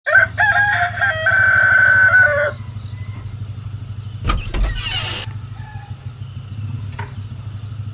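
A rooster crowing: one long crow in two parts that ends about two and a half seconds in. A low steady hum runs underneath. A thump with a brief rustle comes about four seconds in.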